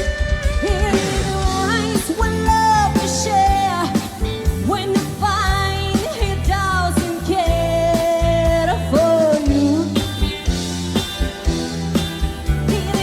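Live pop-rock band playing a medley passage: bass and drums keep a steady beat under a lead melody that slides and wavers in pitch.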